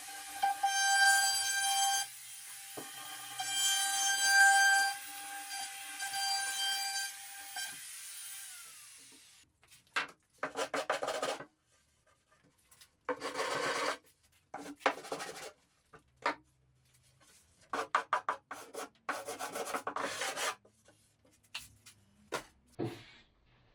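A small power tool's motor whines steadily, swelling three times as it bites into the work, then winds down. It is followed by a run of short, irregular scraping strokes on wood, like hand sanding or filing.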